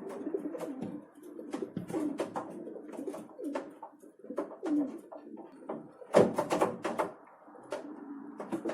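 Feral pigeons cooing in low, bending calls, mixed with many sharp taps and clicks from the birds jostling at a feeder; a dense flurry of taps comes about six seconds in.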